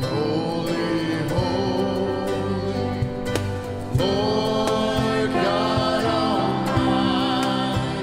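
Live church worship music: voices singing a hymn with instrumental accompaniment and a steady beat.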